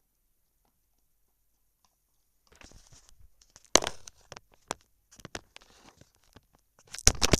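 Glue-and-Tide slime, still a little sticky, being mixed in a bowl: irregular sticky crackling and sharp clicks that start about two and a half seconds in, with a loud knock near four seconds and a loud cluster of clicks near the end.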